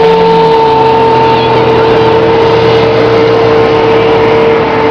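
Small boat motor running at a steady speed with a high, unchanging whine.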